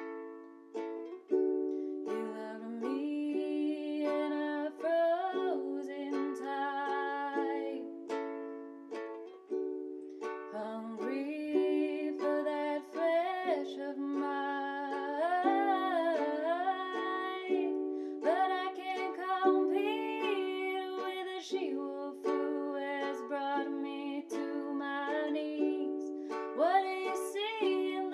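Round-bodied ukulele strummed in chords, with a woman singing over it from about two seconds in, pausing briefly between phrases.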